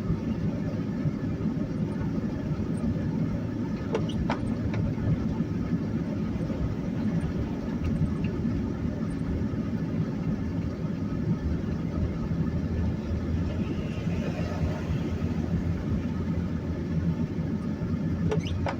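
Steady in-cabin road and engine noise from a car driving slowly on a snow-covered highway, with a few light clicks.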